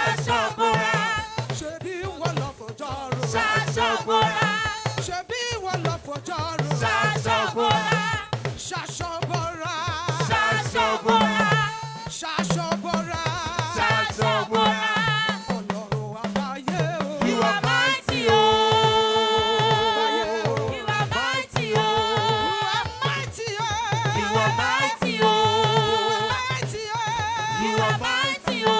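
Live gospel praise music: a band with drum kit playing a steady, driving beat under wavering sung melody lines.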